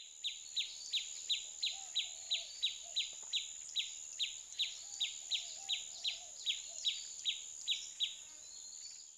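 Woodland insect chorus: a steady high-pitched drone over a regular series of short, falling chirps, about three a second, which stop about a second before the end. Faint, lower wavering calls come twice in the background.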